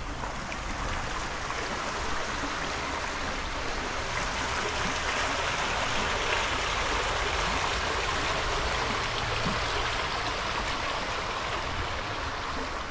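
Flowing water rushing steadily, a little louder in the middle.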